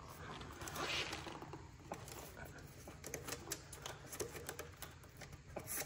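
Faint clicks, taps and rustling of wiring and plastic connectors being pulled out of an e-bike's controller compartment. The clicks come thick and fast in the second half, with one sharper click near the end.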